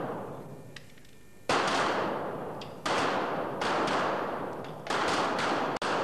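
Pistol shots fired at uneven intervals, about five in all, each sharp report trailing off in a long echo under the stone vault of the range.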